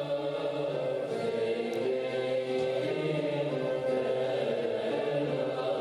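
Classical Turkish music: a choir of voices singing a slow passage in long, held notes.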